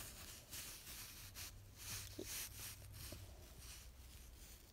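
Faint, irregular rustling and handling sounds as small plastic toy figurines are moved by hand over a fabric surface, over a low steady hum.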